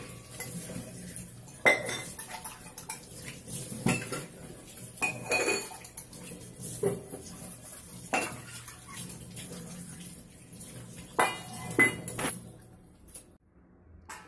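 Stainless-steel kitchen utensils (pots, bowls and tumblers) clanking and clinking as they are handled and set down, in separate knocks every second or two, thinning out near the end.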